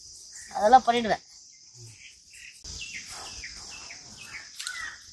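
Steady high-pitched drone of insects, with a run of short falling bird chirps over the second half.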